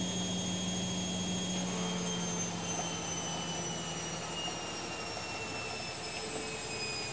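A steady mechanical whine and rumble, with several high tones slowly falling in pitch together and a low hum that fades about two seconds in.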